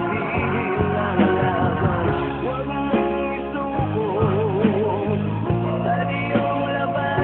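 A song plays with a singing voice over band accompaniment and a steady beat. The vocal line wavers with vibrato about four seconds in.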